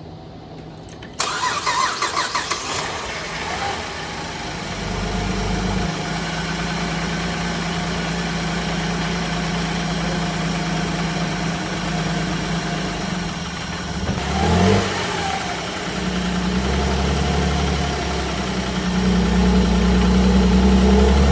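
Freshly rebuilt GM 3.6-litre V6 cranked by the starter on its first start after the rebuild. It catches within a few seconds and settles into a steady idle, with a short rise and fall in engine speed about two-thirds of the way in, and it runs louder near the end.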